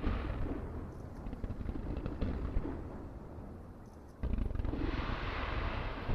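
Aerial firework shells bursting over the sea with deep, rolling booms. One burst comes at the start and a louder one about four seconds in, followed by a couple of seconds of hissing crackle.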